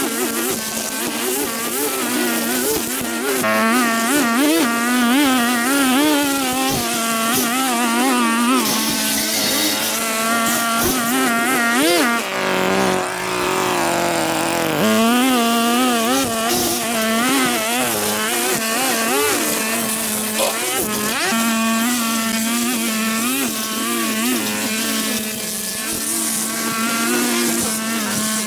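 Small petrol engine of a lawn mower or string trimmer running continuously, its pitch wavering, with a brief drop in pitch about halfway through.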